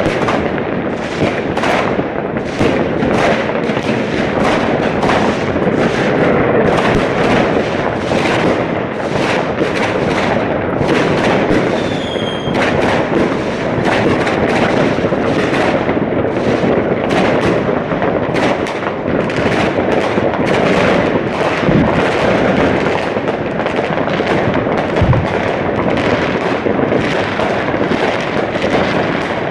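Dense, continuous barrage of fireworks: many overlapping bangs and crackles with no let-up. A short whistle sounds about twelve seconds in, and a couple of deeper booms come in the last third.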